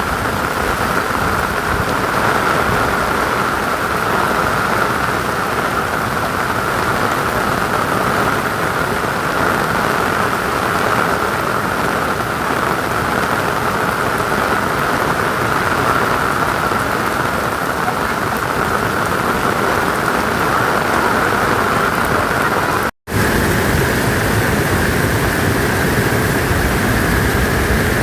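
Heavy rain falling steadily, a dense even hiss of drops. It cuts out completely for a moment about two-thirds of the way through, then resumes unchanged.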